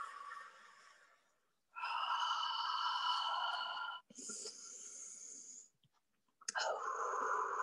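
A woman's breathy, held vocal tones, sounded on the out-breath: several long notes of about one and a half to two seconds each, separated by short silences.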